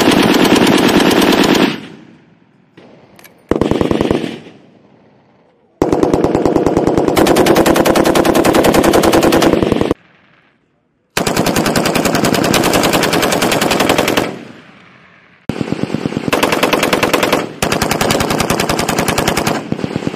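M240 belt-fed 7.62 mm machine-gun fire: six bursts of rapid, evenly spaced shots, from under a second to about four seconds long, with short pauses between them.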